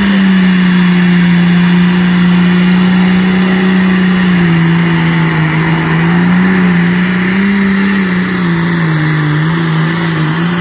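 International 966 tractor's engine running loud at full throttle under the load of a pulling sled, its pitch holding steady and wavering slightly as the load shifts.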